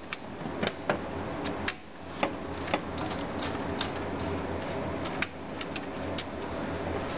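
Irregular small clicks and taps from handling computer hardware and its screws, about a dozen scattered through, over a steady low hum.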